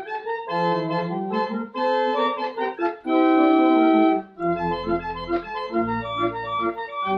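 Church pipe organ playing the closing voluntary: a run of quick chords, a loud full chord held for about a second around three seconds in, then deep bass notes joining.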